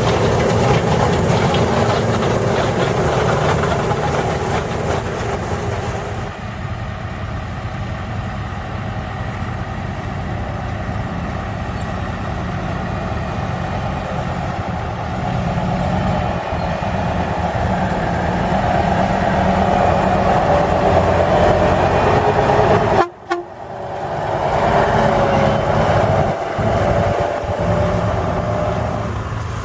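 Laverda 225 combine harvester running steadily, its engine and machinery giving a constant hum with a steady whine. The sound changes abruptly about six seconds in and drops out for a moment about two-thirds of the way through.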